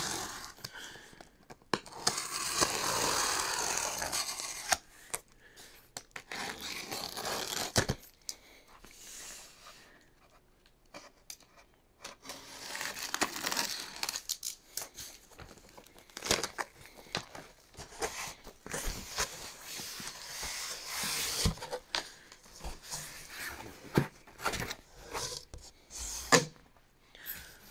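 Box cutter slitting the packing tape on a large cardboard box, in several long stretches of tearing and scraping, with knocks and rustles of cardboard as the flaps are pulled open.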